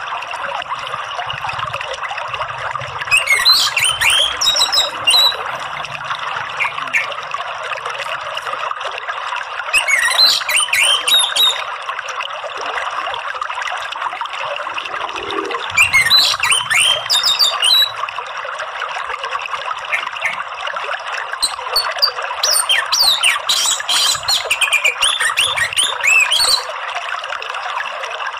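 Orange-headed thrush singing in four bouts of quick, rising and falling whistled phrases a few seconds apart, the last bout the longest, over the steady rush of running water.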